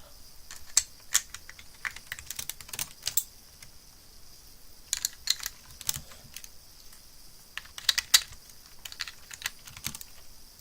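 Plastic Lego bricks clicking and snapping as pieces are handled and pressed onto a model, in irregular clusters of sharp clicks.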